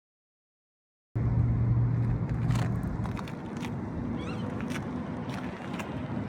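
Outdoor background that starts abruptly about a second in: a low rumble that is strongest at first, a few sharp clicks, and some short high chirps.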